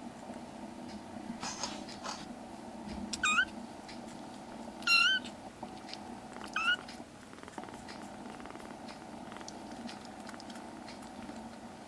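Young black kitten mewing three times: short, high-pitched mews that rise in pitch, about a second and a half apart, the middle one loudest. A faint steady low hum runs underneath.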